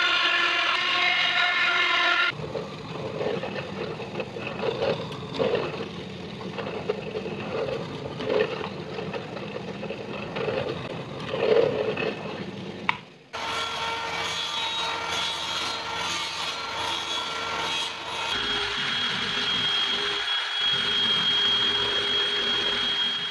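A bench drill press running as a hole saw cuts plywood, then drilling plywood with a small bit, the cutting noise swelling and easing with each plunge. About thirteen seconds in, this gives way to a cordless drill spinning a sanding drum against curved plywood edges, a steady motor sound with a high whine.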